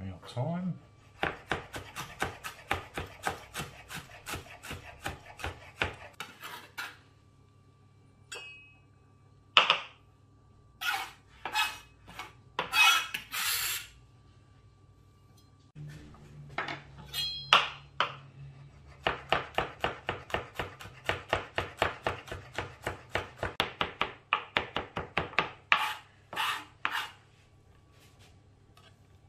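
Chef's knife rapidly chopping fresh thyme and garlic on a plastic cutting board. The knocks come several a second in two long runs, with single strokes and a scrape of the blade across the board in between.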